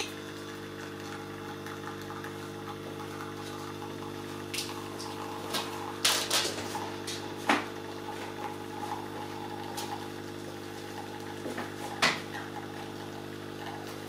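Philips L'OR Barista capsule coffee machine's pump humming steadily while it brews coffee into a glass mug. A few sharp clicks come through, the loudest about six, seven and a half and twelve seconds in.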